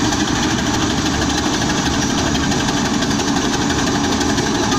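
A 1921 steam tractor working under a pulling load, its engine and exhaust running steadily and loudly.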